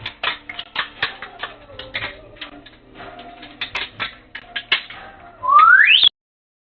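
A pet bird making rapid clicking noises, then a loud whistle that rises sharply in pitch and breaks off suddenly near the end.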